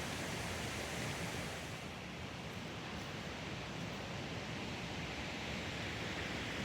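Steady rushing of water from a stream and waterfall, an even, unbroken noise.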